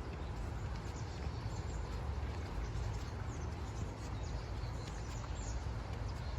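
Small birds chirping faintly and intermittently, over a steady low rumble and the soft steps of someone walking a forest path.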